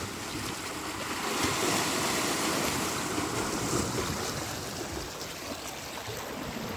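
Ocean surf: waves breaking and washing up the beach, a steady rushing that swells about a second and a half in and eases a little near the end.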